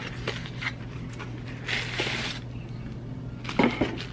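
A small cardboard mailer box being handled and opened, with a short rustle of paper and cardboard about two seconds in as a tissue-paper-wrapped package comes out, and a few light taps and clicks of handling.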